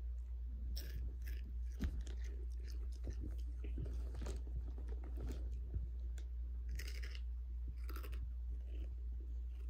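Someone chewing Takis rolled tortilla chips, with irregular crisp crunches about every second. A steady low hum runs underneath.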